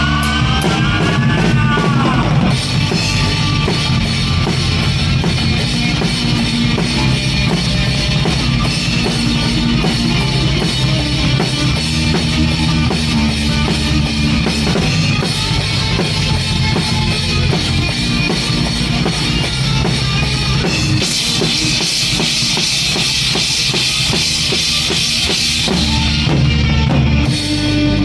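Live rock band playing an instrumental passage with the drum kit up front: bass drum and cymbals driving a steady beat over bass and guitar. The cymbals wash brighter for several seconds late on.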